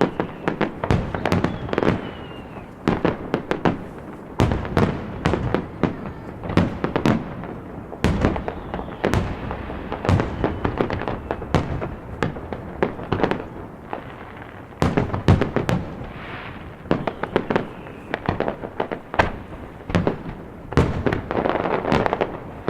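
Aerial firework shells bursting in a dense barrage, many bangs in quick succession, with a falling whistle about two seconds in and stretches of crackling later on.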